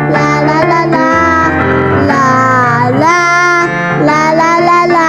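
Children singing a song with instrumental accompaniment.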